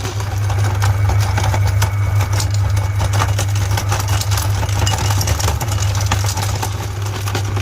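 Electric meat grinder running with a steady low motor hum, with dense irregular crackling and crunching from candy being ground.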